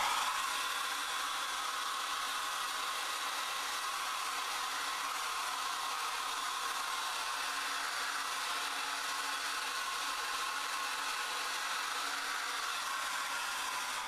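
Handheld domestic hair dryer running on its high setting with the cool-shot button held, making a steady rush of blown air with a faint motor whine.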